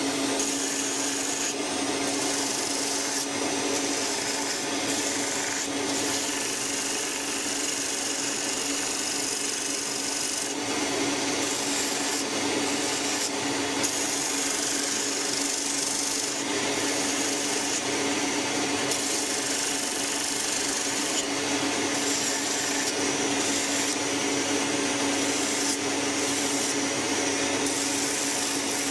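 Bench grinder fitted with an abrasive sanding wheel, running at a steady hum while wooden knife-handle scales are ground against it to square their sawn ends.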